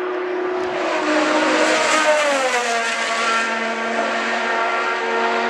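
600cc supersport racing motorcycle passing at racing speed, its high-revving engine note dropping in pitch as it goes by about two to three seconds in, then running on at a steady lower pitch as it moves away.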